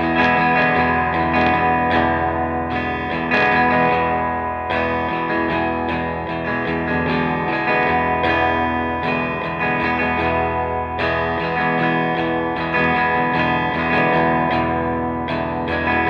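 Electric guitar played through a Fender Twin Reverb amp with an attenuator, with a run of picked notes and chords and a light edge of grit.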